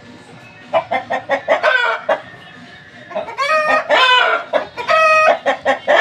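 Aseel rooster crowing twice: a first crow about a second in, and a second, longer crow from about halfway through to the end.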